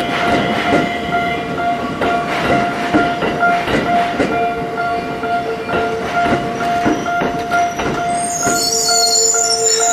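Level crossing warning bell ringing steadily and repeatedly as a Tokyo Metro Ginza Line 1000 series train rolls over the crossing. The wheels clack over the rail joints, and a high wheel squeal sets in near the end.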